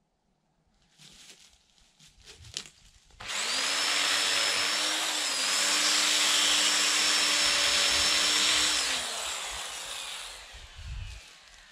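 Chainsaw starts cutting about three seconds in, running at full speed through wood for about six seconds with a steady high whine that shifts pitch once under load, then winds down with a falling pitch as the chain slows.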